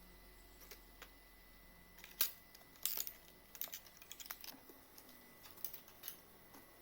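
Irregular light clicks and taps from computer parts being handled during a PC build, with two louder clicks about two and three seconds in.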